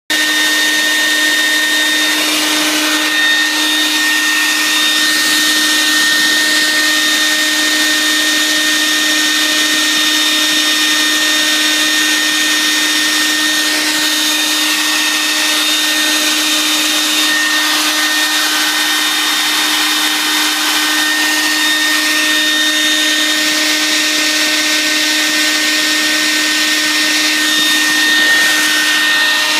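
CNC router spindle running with a steady whine and an even rushing hiss while it carves lettering into a wooden bowl.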